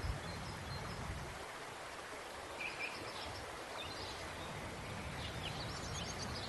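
Steady outdoor background hiss with a few faint, short bird chirps, a couple about two and a half seconds in and more near the end.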